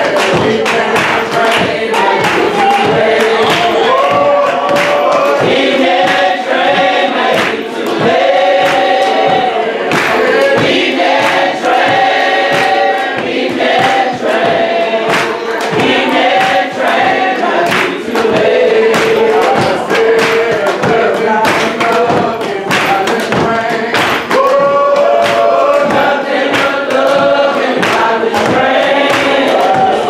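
Gospel song sung by several voices, led by a man, with sharp hits keeping a steady beat.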